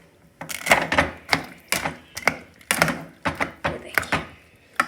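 Irregular series of about a dozen sharp knocks and clicks from kitchen utensils, roughly three a second.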